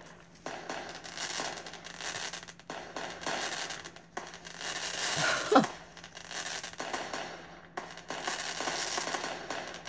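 Scratchy strokes of a pen drawing on the paper of a small spiral notepad, scribbling in long runs broken by short pauses.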